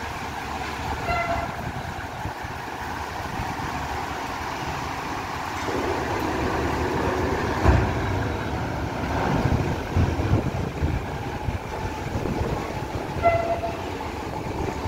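Diesel buses running as they drive off a ferry over its steel ramp, with a short horn toot about a second in and another near the end. A loud thump comes about halfway through, followed by more thumps a couple of seconds later.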